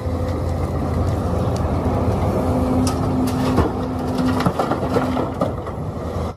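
Engine of heavy machinery such as an excavator, running steadily with a deep rumble, with a few light clicks scattered through it.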